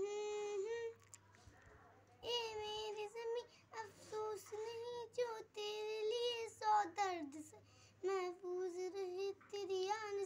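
A young girl singing solo without accompaniment: sustained, wavering notes in several phrases with short pauses between them.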